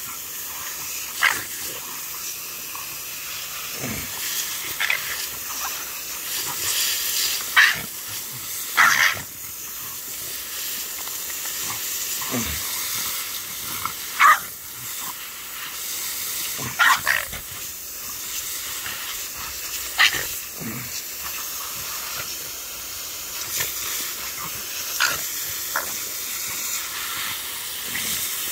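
Steady hiss of a garden hose spraying water, with a French bulldog barking at the spray in about a dozen short, sharp barks, some dropping in pitch.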